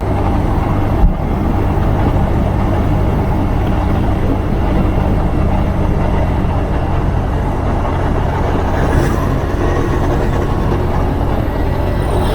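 Motorcycle riding at steady road speed: the engine's low, even hum under a loud rush of wind and road noise, with one short knock about a second in.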